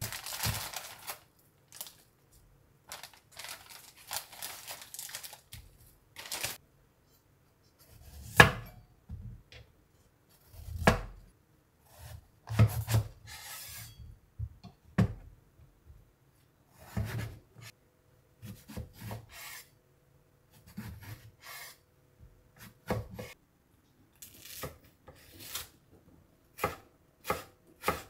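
A plastic zip-lock bag rustles briefly, then a kitchen knife cuts through eggplant, each stroke ending in a knock on a wooden chopping board. Near the end come quicker slicing strokes, about two a second, as myoga is cut thin.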